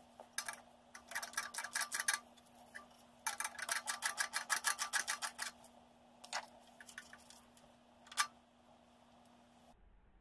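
Ratchet wrench clicking in two runs of rapid, even clicks, about nine a second, as a nut is turned, with a few single clicks and knocks between.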